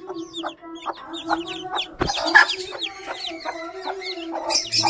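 Newly hatched chicks peeping in quick, high, falling notes while the mother hen clucks low and repeatedly under them. A sharp knock comes about two seconds in, followed by a louder burst of calling.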